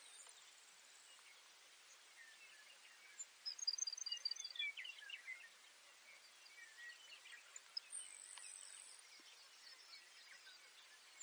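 Baird's sparrow singing once, faintly: a quick row of about six high, thin notes about three seconds in, then lower tumbling notes. A thin high buzz comes near the end, and a few faint chirps sound in the background.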